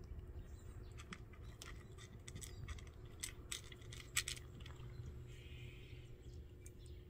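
A cat eating from a bowl: faint, irregular crunching chews and small clicks against the bowl, busiest about three to four seconds in.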